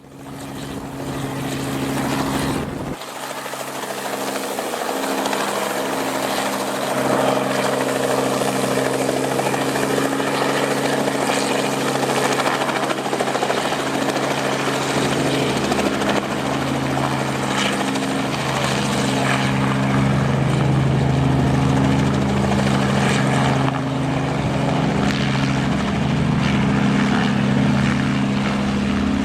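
Robinson R44 helicopter running steadily, its six-cylinder Lycoming piston engine and rotor making a continuous drone. The sound fades up over the first second or two.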